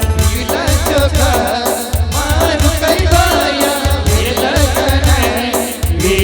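Timli folk band music: a wavering, ornamented melodic lead over a heavy, steady bass beat.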